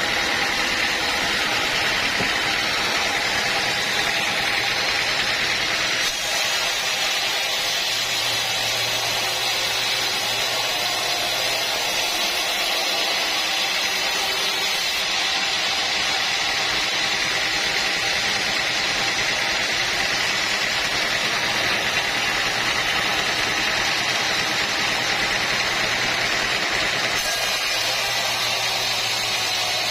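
Sawmill machinery running steadily under load, a loud even mechanical noise with a whine high up, in several joined stretches.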